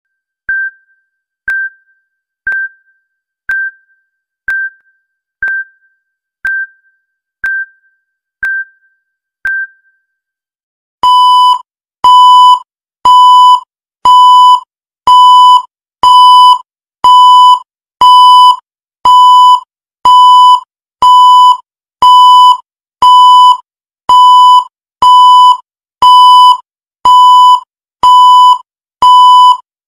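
Countdown timer sound effect: a soft tick once a second for about ten seconds, then from about eleven seconds in a loud electronic beep once a second, each beep marking one second of the countdown.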